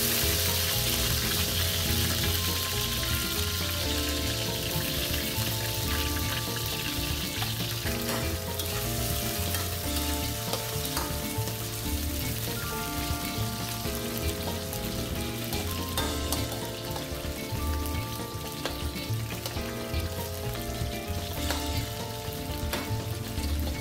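Cubed potatoes frying in hot oil in a wok: a dense, steady sizzle, strongest in the first few seconds just after they go in, then easing a little. A metal ladle stirs the potatoes and now and then clicks against the wok.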